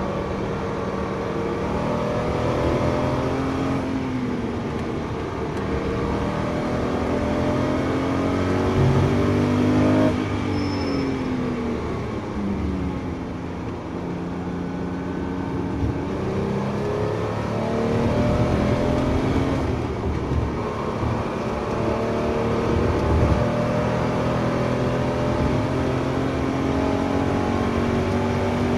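Porsche 911 GT3's flat-six engine heard from inside the cabin, revving up through the gears. It drops away under braking and downshifts about ten seconds in, then pulls hard up the revs again.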